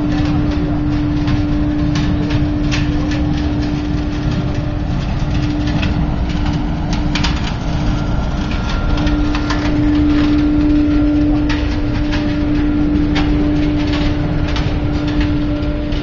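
Large biomass sawdust burner firing full out: a steady low roar of the flame jet and its air blower, with a constant tone running through it and frequent sharp crackles.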